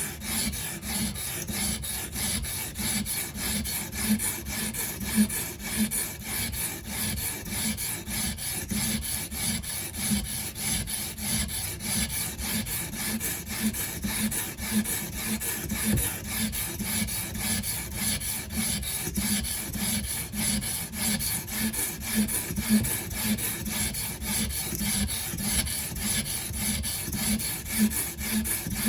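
Coarse 120-grit Edge Pro sharpening stone rasping along the edge of a 154CM steel knife blade in steady, even strokes, a little under two a second, grinding in a new bevel until a burr forms.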